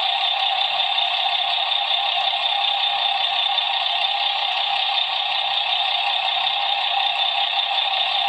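Sound module of a 1:12 Hachette Star 266 truck model playing its engine-running sound through the model's small built-in speaker: a steady, thin engine noise with no deep tones.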